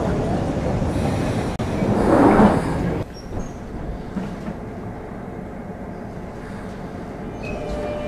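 London Underground Jubilee line train (1996 stock) with its doors open: a loud, steady rumble of train and platform noise, which drops suddenly about three seconds in to the quieter, steady hum heard inside the carriage.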